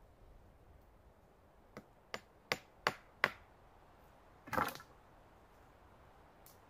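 Five sharp knocks of a hatchet's poll hammering on a wooden pole, about three a second, followed about a second and a half later by one louder, longer rough noise.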